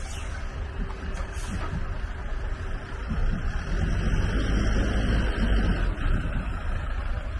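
Road traffic noise, with a truck passing close by as a low rumble that swells about four seconds in and eases off about six seconds in.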